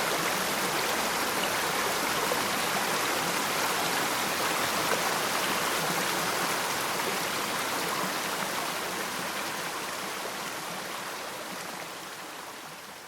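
Waterfall rushing in a steady, even wash of water noise, fading out gradually over the second half.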